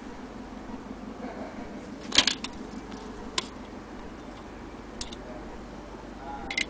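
A few scattered sharp clicks and taps, the loudest about two seconds in, as a steel tape measure is handled against a brass anniversary clock, over a faint steady hum.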